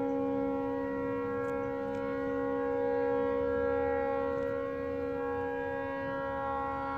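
Tugboat fog horn stuck on, blaring in one steady, unbroken tone: a malfunction that keeps it sounding almost non-stop.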